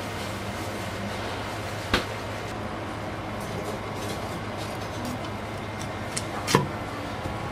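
Two sharp knocks over a steady low hum and background noise, one about two seconds in and a louder one about six and a half seconds in.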